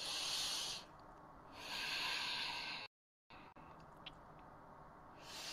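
A woman's slow, deep yogic breaths, filling belly and chest and letting go: a soft, hushed breath near the start, a longer one from about one and a half to nearly three seconds in, and another beginning near the end.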